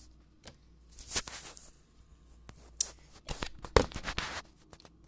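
Handling noise from the phone recording the sound as it is moved about: rustling and scraping with several sharp knocks, the loudest a little under four seconds in.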